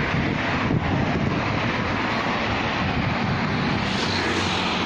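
Steady road traffic noise, with wind buffeting the microphone.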